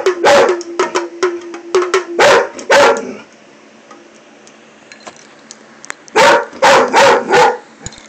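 Dog barking in short volleys at a hand drum being played close to it: several loud barks in the first three seconds, a pause, then another run of barks about six seconds in.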